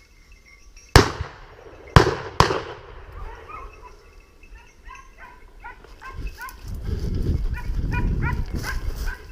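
Three gunshots at wild boar: one about a second in, then a pair close together a second later, each ringing out. Pointing dogs then break into rapid, high-pitched barking and yapping. From about two-thirds of the way through, a loud low rustling rumble sits under the barking.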